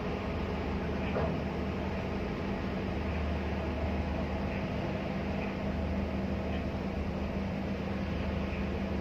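Steady low engine drone with a constant hum under an even hiss.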